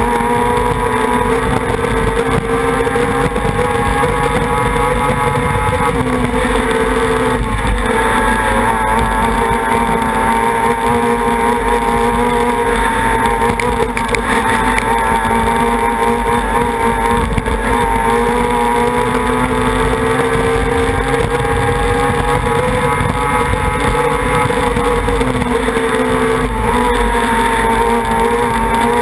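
Racing outboard engine on a tunnel boat running at high speed, a steady engine note that wavers slightly and dips briefly a few times, over the rush of spray from the propeller and lower unit.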